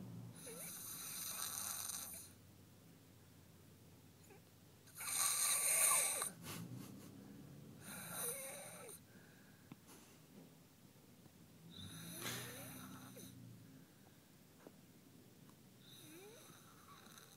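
Snoring in slow, regular breaths: five snores roughly four seconds apart, the one about five seconds in the loudest.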